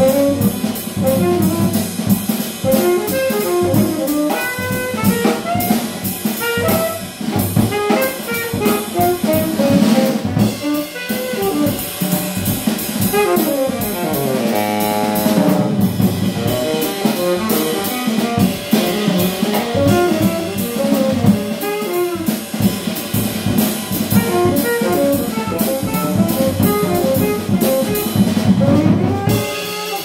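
Small jazz group playing live: a tenor saxophone solos over drum kit, double bass and piano. There is a fast downward run of notes about halfway through.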